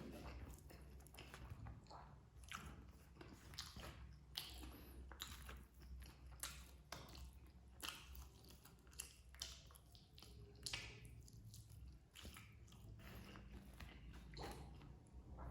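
A person chewing and eating rice with side dishes, making irregular short mouth and chewing sounds.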